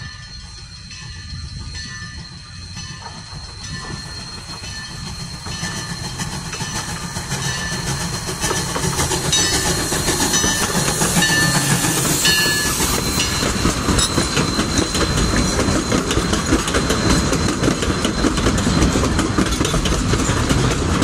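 Narrow-gauge steam train approaching, growing steadily louder over about ten seconds as the locomotive passes close by, then its passenger coaches rolling past, wheels running on the rails.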